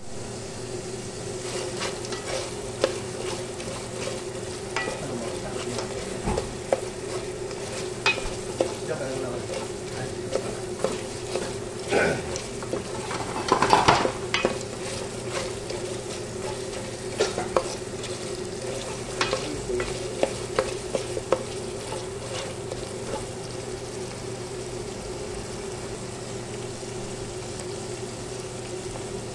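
Chicken pieces sizzling in sauce in a pot while being stirred, with scattered clicks and scrapes of the utensil against the pot, busiest and loudest about halfway through. A steady hum runs underneath.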